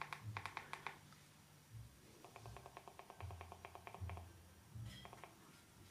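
Near silence, with faint rapid ticking in two short runs (the first second, and again around the middle) and a low hum that comes and goes.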